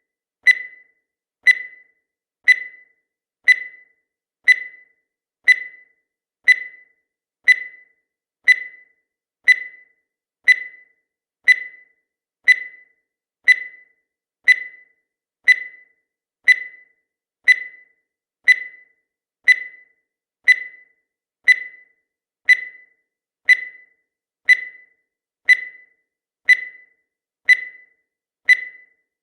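A countdown timer's tick sound effect: a short, high-pitched electronic ping that strikes once every second and dies away quickly, marking each second of the countdown.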